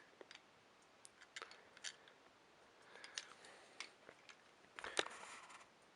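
Near silence with a scattering of faint, short clicks and taps.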